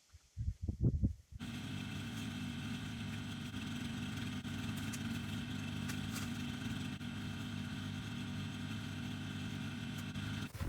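A few low thumps, then an engine idling steadily, starting and stopping abruptly.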